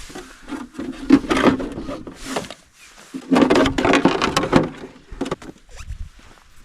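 Handling noise from parts and tools being worked on by hand: irregular rustling, scraping and knocking, louder about a second in and again from about three to five seconds in.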